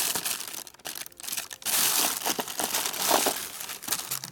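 Rummaging through parts by hand: irregular crinkling with many small clicks and rattles, loudest around two and three seconds in.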